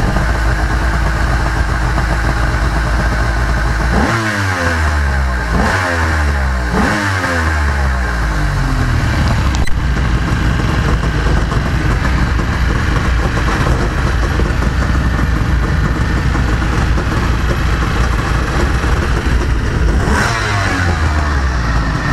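Yamaha LS2000 jet boat's two-stroke 1200 engines idling on the trailer on a flush hose, out of the water. Three quick throttle blips about four to eight seconds in, each falling back to idle, and another near the end.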